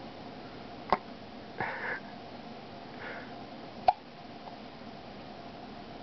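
A baby hiccuping: two sharp, short hiccups about three seconds apart, with a softer short noise between them.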